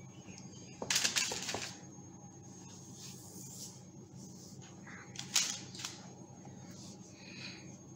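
Soft rustling and handling noises from scone dough being gathered on a floured bench and the paper-lined baking tray being moved. There are a couple of brief rustles about a second in and again near the middle, over a faint low hum.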